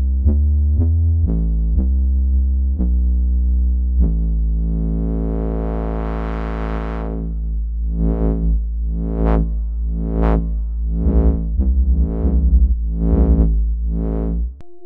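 ROLI Seaboard Block playing the Equator 'Tuba Synth Bass' preset. It plays a few short low notes, then holds one long bass note whose tone brightens and dulls as the key pressure changes. Near the end the tone swells a little more than once a second, and the note stops just before the end.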